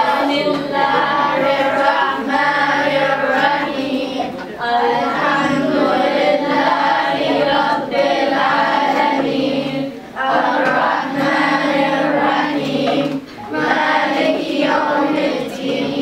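A group of children singing a melody together in held notes, with a few short breaks between phrases.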